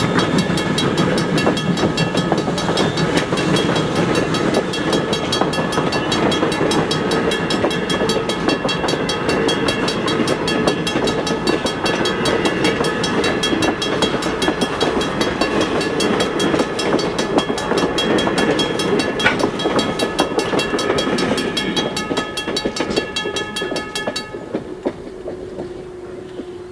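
A train passing on the rails, with a rapid, even clicking of wheels and several steady high tones over it. It cuts off sharply near the end, leaving a single quieter steady tone.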